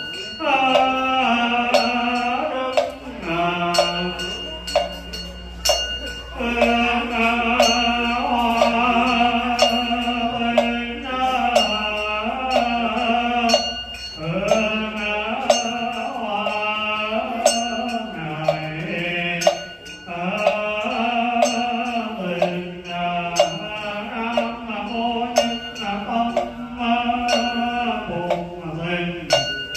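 A voice chanting a melodic Buddhist liturgy for the ritual of feeding the hungry ghosts, with long held notes and short pauses. Frequent sharp percussive strikes run through it.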